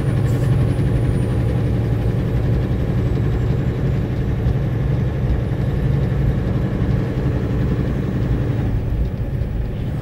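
Logging truck's diesel engine running with a steady low drone.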